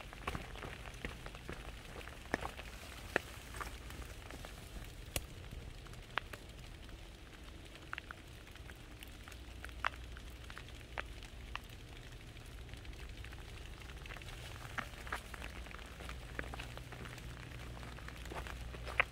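Raindrops ticking one by one at an irregular pace, some sharper and louder than others, over a low steady rumble.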